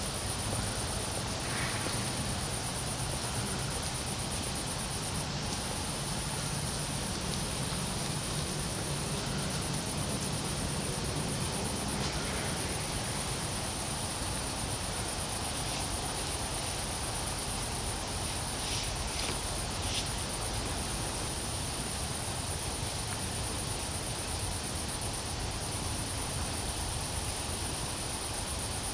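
Crickets chirring steadily at a high pitch over a low, steady background hum.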